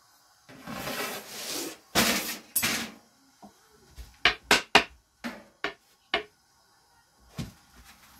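Rustling swishes of thin flatbread dough being lifted and laid over a domed griddle with a long thin rolling pin, followed by a quick run of sharp knocks as the wooden pin strikes the boards and griddle.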